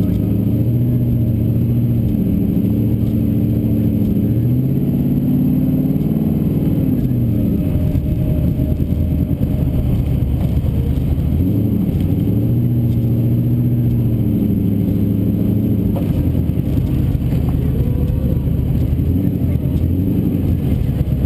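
Car engine and exhaust at low speed, heard from outside the car, the engine note rising and falling several times as the car accelerates and eases off, over steady low rumbling road and wind noise.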